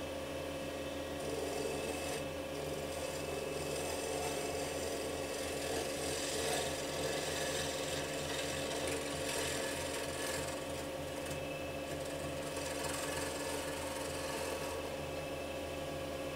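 Wood lathe running with a steady motor hum while a turning gouge cuts a banksia pod pen blank filled with dyed epoxy, making a rasping, scraping cut that comes and goes. The cutting stops near the end, leaving the lathe spinning.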